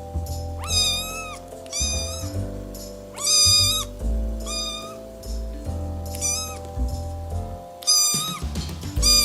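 Domestic cat meowing over and over: about six short, high meows, each about half a second long, over background music with held notes and a low bass.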